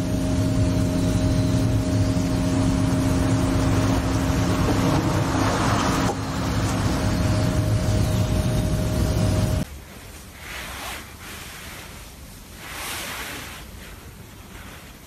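Loud steady outdoor noise with a low machine hum running through it, as from an engine or motor nearby. It cuts off suddenly about ten seconds in. Then comes faint soft rustling of a finger stroking a cat's fur, in two short spells.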